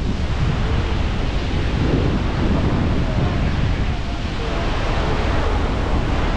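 Steady rush of a large river waterfall, with wind buffeting the microphone.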